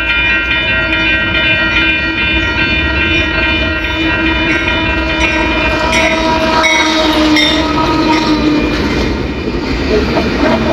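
Union Pacific diesel freight locomotive's air horn sounding a chord of several steady tones. Over the second half the train is heard passing, with rapid clicking of wheels over the rails.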